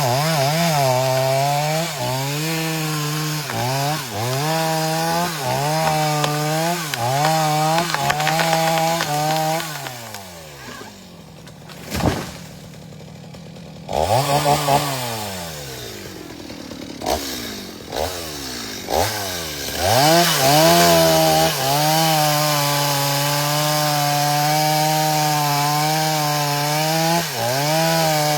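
Chainsaw running while cutting, its engine note dipping and recovering about once a second. Midway the revs fall away to a low run for several seconds, with brief revs in between, then the saw is held at high revs in a steady cut near the end.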